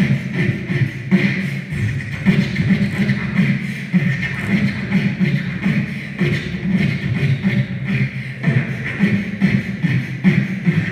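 Beatboxing: one performer's mouth-made beat, a pulsing bass line under quick percussive clicks and snares in a steady, unbroken rhythm.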